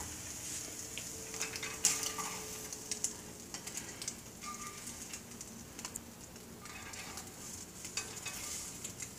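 Egg sizzling quietly in a hot nonstick frying pan, a steady hiss. A few scrapes and taps come from a plastic slotted spatula against the pan as the omelette is lifted out.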